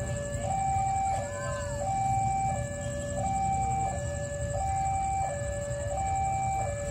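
Railway level-crossing warning alarm sounding a steady two-tone high-low signal, switching pitch about every two-thirds of a second, over a low rumble.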